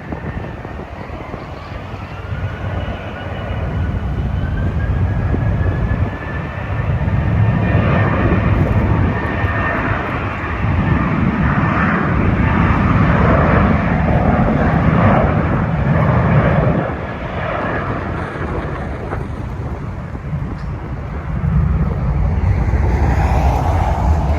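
Jet airliner passing, its engine whine rising in pitch over the first few seconds before a loud, steady engine rumble takes over for most of the stretch.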